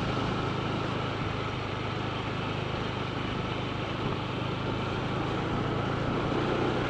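Honda ADV 160 scooter's single-cylinder engine running steadily while riding, a low hum under an even rush of wind and road noise.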